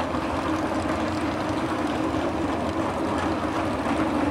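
Race car engines running, a steady rumble.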